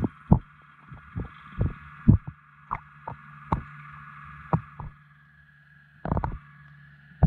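Muffled knocks and thumps picked up underwater over a steady hum. About a dozen come at irregular intervals, with a louder cluster about six seconds in. They are a fishing lure being worked over a rocky bottom and hit by a bass.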